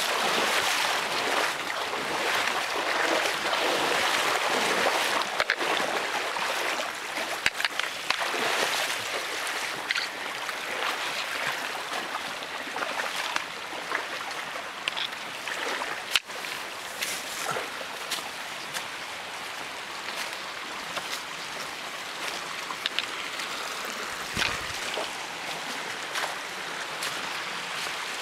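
Creek water rushing and splashing over rocks, louder in the first several seconds and easing after that, with scattered knocks and scuffs of footsteps and gear on rock.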